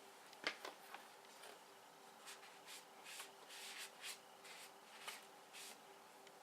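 Faint rubbing strokes of a rag wiping down a light fixture freshly sprayed with WD-40, with a couple of soft knocks about half a second in.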